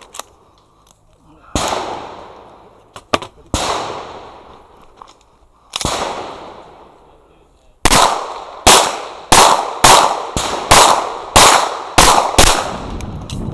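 Pistol gunfire. Three shots about two seconds apart, then a quick string of about ten shots in the second half, each with a ringing echo tail.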